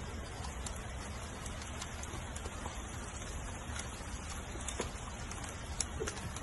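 Steady rain falling on a wooden porch deck, an even patter with scattered sharper drop ticks.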